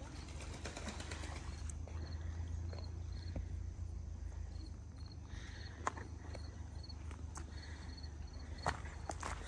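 Outdoor ambience: a steady low rumble of wind with a short, high chirp repeating at an even pace, and two sharp clicks, one about six seconds in and one near the end.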